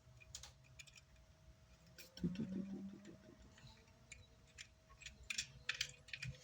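Scattered light clicks and taps of small parts and tools being handled, with a brief low murmur of a voice about two seconds in.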